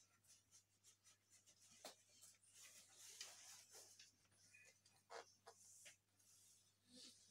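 Near silence: faint scratchy rustling and scattered clicks over a faint steady low hum.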